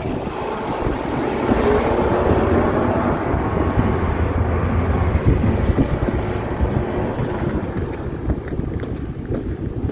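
Snowblower engine running steadily while clearing snow, easing off slightly near the end.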